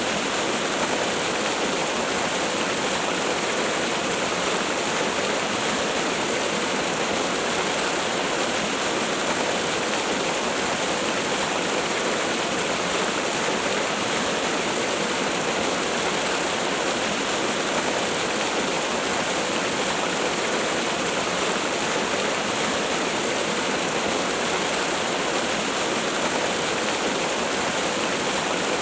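Waterfall: a steady, even rush of falling water that never changes, with little deep rumble.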